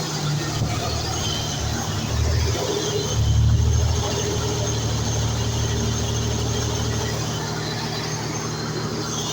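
Gas-powered generator engine running steadily, its level swelling briefly about three seconds in.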